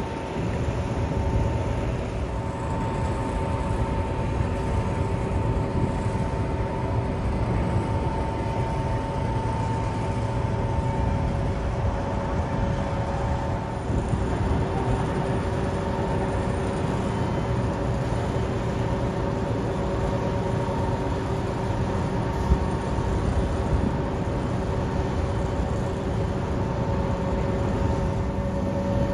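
Steady mechanical rumble with faint, constant humming tones and no distinct events.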